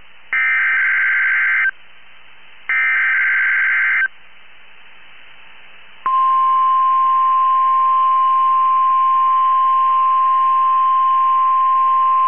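NOAA Weather Radio Required Weekly Test coming over a receiver: the last two of the three SAME header data bursts, each about a second and a half long, then about two seconds of quiet. About six seconds in, the steady 1050 Hz warning alarm tone comes on and holds.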